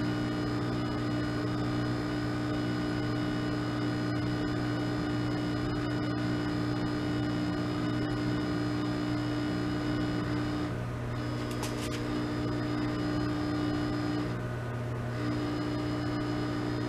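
Riehle torsion testing machine running with a steady electric hum and a whine while it loads a steel test bar in torsion. The whine breaks off twice for about a second, in the second half.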